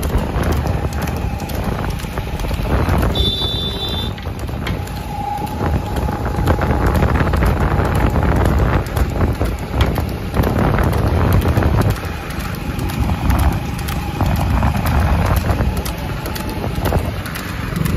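Wind buffeting the microphone and a motorcycle running alongside, over a rapid clatter from a water buffalo's hooves and a wooden racing cart on the paved road.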